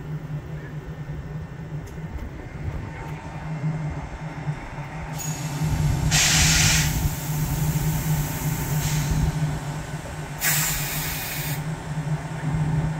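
A railway locomotive standing with a steady low hum, with loud bursts of compressed air hissing out: one about five seconds in lasting about a second and a half, a brief one around nine seconds, and another a little after ten seconds lasting about a second.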